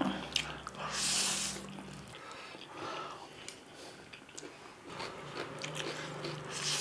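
Close-up eating sounds: people slurping spicy ramen noodles, biting boiled eggs and chewing, with small wet mouth clicks and a louder hissing slurp about a second in.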